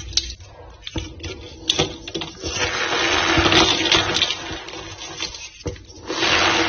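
A reformed white gym chalk block crushed and squeezed by hand: sharp cracks and crunches, then longer stretches of gritty squeaky crumbling.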